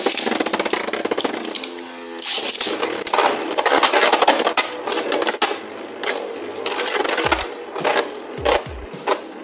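Beyblade spinning tops whirring and rattling on a plastic Beyblade stadium floor, with many sharp clashes as they strike each other and the walls. The clatter starts abruptly at the launch.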